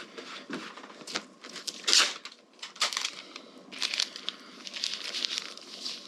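Irregular clicks, scrapes and rustling from hands working parts and tools on a motorcycle engine during disassembly, with the loudest scrape about two seconds in.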